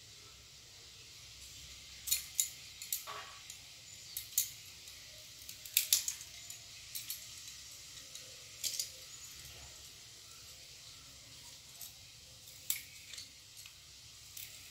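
Scissors snipping through bottle gourd vine stems: sharp clicks at irregular intervals, several seconds apart, as the stalks are cut and trimmed.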